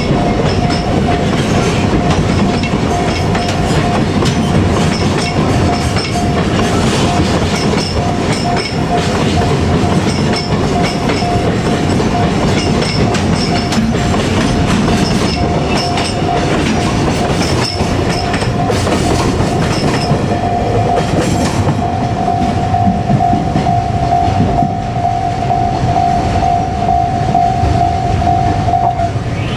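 Steady running noise of a vehicle, with a held high tone throughout that grows louder about two-thirds of the way in and cuts off just before the end, and faint high ticks recurring in pairs.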